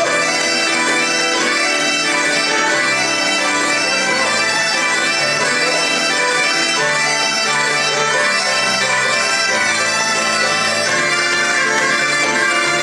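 Bagpipes playing a lively traditional tune over their steady drones, accompanied by fiddle and keyboard.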